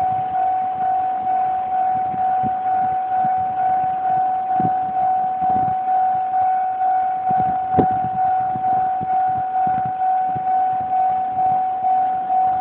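Japanese railway level-crossing alarm bell ringing steadily, a single pitched electronic ding repeating about twice a second, which warns that a train is approaching. A sharp click sounds about eight seconds in.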